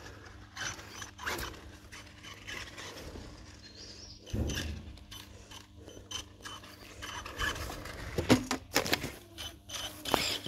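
Traxxas E-Revo brushless RC truck driving in spurts, its motor and drivetrain whirring and clattering, with irregular knocks as it bounces over deck boards and grass; the loudest clatters come about eight seconds in.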